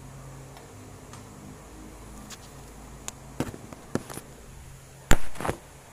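Handling noise from a phone camera being picked up and repositioned: a few knocks and bumps, the loudest a sharp knock about five seconds in, over a steady low hum like an electric fan's.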